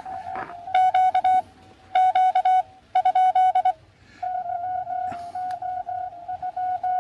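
Morse code (CW) from a Xiegu X6100 transceiver: a single steady tone of about 700 Hz keyed on and off, in three loud groups of quick dots and dashes over the first four seconds, then fainter, steadier keying. A sharp click about five seconds in.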